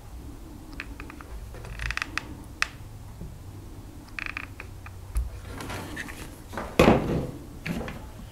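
Hot glue gun being worked over a plastic leaf-blower button, with scattered small clicks and short scrapes of the nozzle and hands on the plastic, and a louder scuff near the end.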